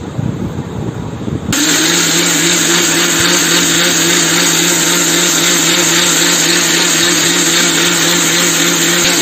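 Electric mixer grinder switching on abruptly about a second and a half in and running steadily at full speed with a steady hum. Its steel jar holds milk, sugar and Oreo biscuits being blended into a shake.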